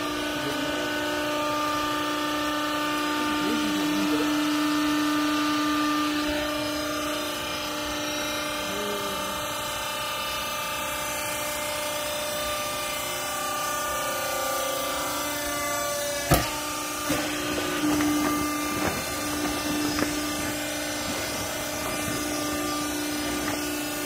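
Vertical hydraulic clothing baler's electric motor and hydraulic pump running with a steady hum as the press plate compresses clothing. A sharp knock comes about two-thirds of the way through, followed by a few lighter knocks.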